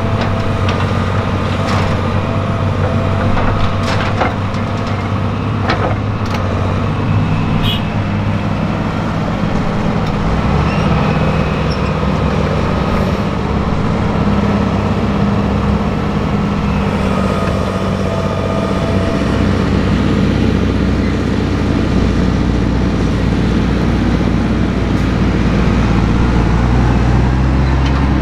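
Diesel engines of a Hitachi Zaxis 350 crawler excavator and a Fendt tractor running as the excavator loads soil into a tipper trailer, with a few sharp knocks in the first several seconds. The low engine rumble grows heavier in the second half.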